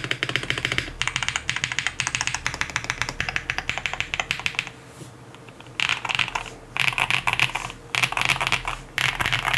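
QK65 custom mechanical keyboard with lubed Zaku switches, a POM plate and GMK keycaps being typed on fast for about four and a half seconds. After a short pause, the typing comes in four quick bursts of about a second each.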